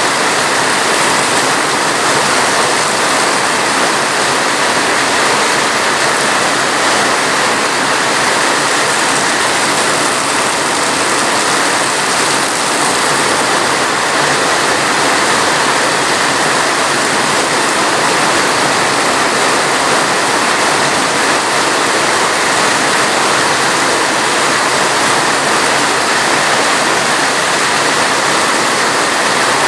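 Steady, dense rainfall: an even rushing hiss with no breaks and no single drops standing out.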